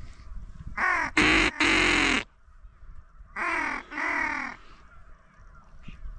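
Duck quacking: a run of three loud, drawn-out quacks about a second in, then two more at about three and a half seconds, each falling in pitch.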